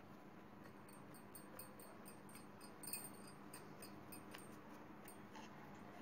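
Near silence: room tone with faint small ticks and one sharper click about three seconds in.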